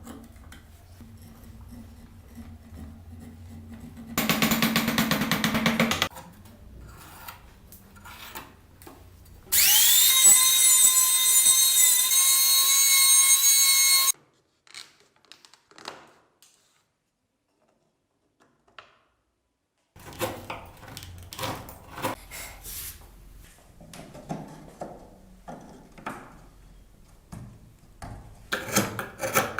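Power tools working wood in short runs: a loud rough burst about four seconds in, then a high-pitched motor whine that spins up and holds steady for about four seconds. After a silent gap come irregular taps and scrapes of handwork on wood.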